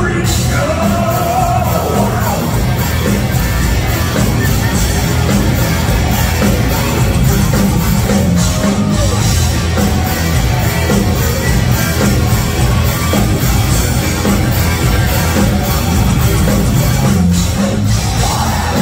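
Live heavy metal band playing: distorted electric guitars, bass and a full drum kit, with a voice over the music near the start and about eight seconds in.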